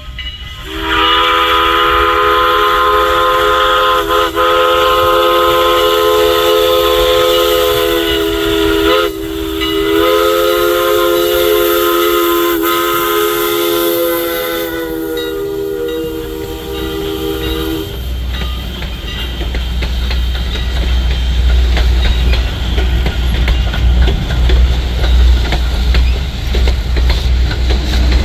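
Steam locomotive No. 89's Pennsy three-chime whistle, from LIRR No. 39, blowing one long chord with a brief break about nine seconds in, for some seventeen seconds. The train then rumbles and clanks past on the rails.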